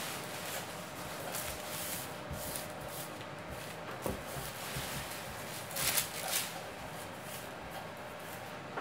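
Baking paper rustling and rubbing in short scrapes as a ground-chicken mixture is pressed and rolled flat on it, with a cluster of louder rustles about six seconds in.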